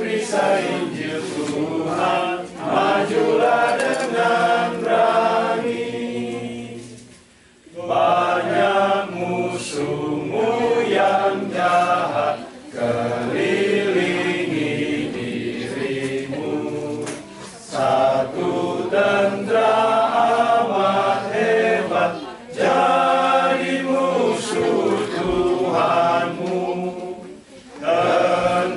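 A group of men singing a hymn together without accompaniment, in Indonesian, in phrases of a few seconds with brief breaks between, and a longer pause about seven seconds in.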